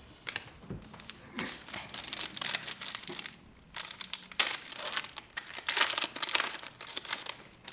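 Crinkling and rustling of a trading-card pack's wrapper being torn open and handled, in irregular bursts that start about a second and a half in.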